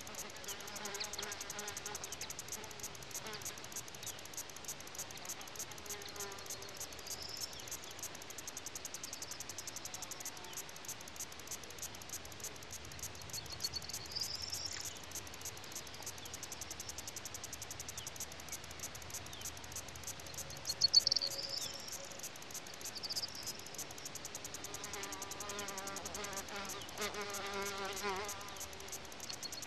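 A fast, even high ticking that runs throughout, like chirping insects, with a few short whistled chirps that sweep up and down, the loudest about two-thirds of the way in. Faint pitched tones come and go at the start and near the end.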